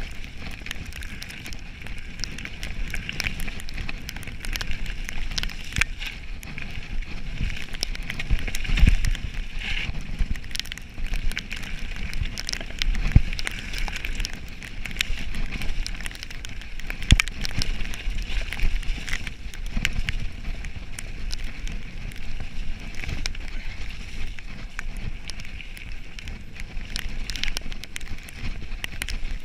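Mountain bike riding down a rough, stony trail, heard through a rider-mounted camera: a continuous rattle of tyres and frame over the surface, with many sharp clicks and knocks from bumps and low thumps of wind on the microphone.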